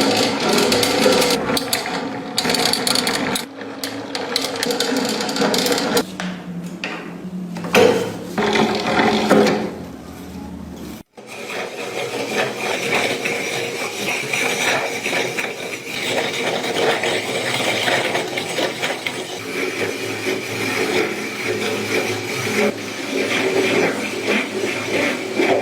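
Restored antique ice crusher being tested, grinding and crunching ice with clicks and rattles. It stops sharply about eleven seconds in, then resumes as a steadier grinding.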